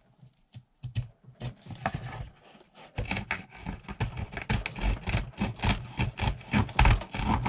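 Small folding saw blade of a Ganzo G302-B multitool cutting into a small wooden branch. Short, hesitant scraping strokes while the cut is being started, then faster, steady rasping strokes from about three seconds in once the teeth bite.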